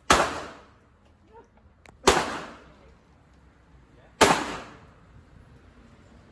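Three gunshots about two seconds apart at an indoor shooting range, each a sharp crack followed by a short echoing tail.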